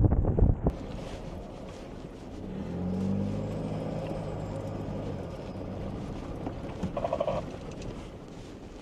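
Wind buffets the microphone briefly at the start, then the Isuzu D-Max 4WD is heard driving on a dirt track, its engine note rising and holding for a couple of seconds in the middle. A short squeak comes near the end.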